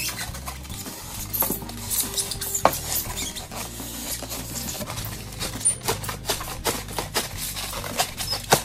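A knife blade sawing through pink foam insulation board, deepening a cut along its edge: irregular scratching strokes with sharp clicks.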